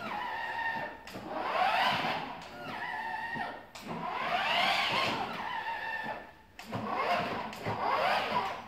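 Ride-on toy car's built-in speaker playing an engine-revving sound effect: three revs, each rising in pitch and falling back, with a steady electronic hum between them.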